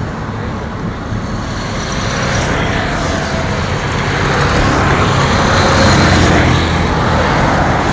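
Motor vehicle running, a steady rumbling noise that grows gradually louder.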